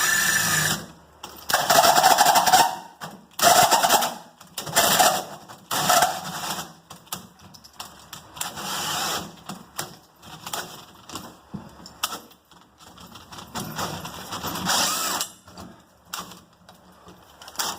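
Power drill driving a 2 1/8 inch hole saw into a door from the second side, in short bursts, with several loud bursts in the first six seconds and then quieter, longer runs.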